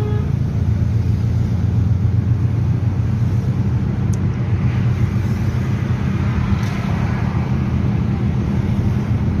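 Steady low rumble of engine and tyre noise, heard from inside the cabin of a moving car.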